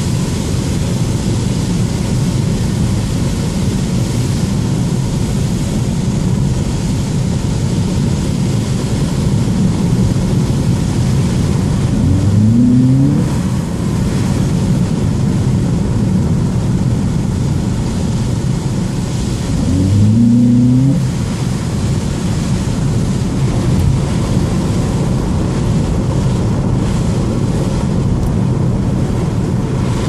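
Acura TSX driving on a snow-covered road, heard from inside the cabin: steady tyre and road noise over the engine hum. Twice, about 12 and 20 seconds in, the engine note rises briefly.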